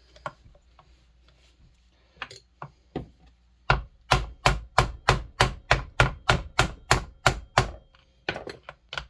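A run of about a dozen sharp taps, about three a second, with a few scattered knocks before and after: a makeshift tool driving a stubborn wrist pin out of a Pioneer NU-17 chainsaw piston.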